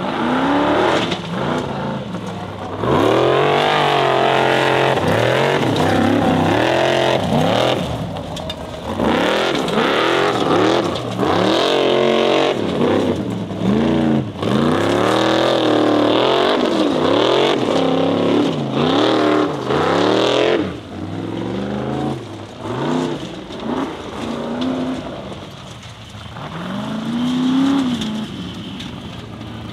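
Formula Offroad hill-climb buggy's engine revving hard under full throttle, its pitch rising and falling again and again as it climbs. About two-thirds of the way through it falls away and gets quieter, then revs up once more near the end.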